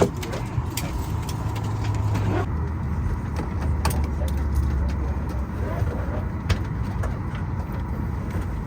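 Steady low mechanical hum that shifts in pitch a few times, with scattered light clicks and knocks over it.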